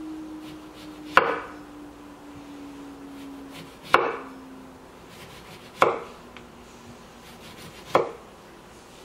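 Chef's knife slicing rounds off a lemon and knocking on the wooden cutting board: four sharp knocks, a couple of seconds apart.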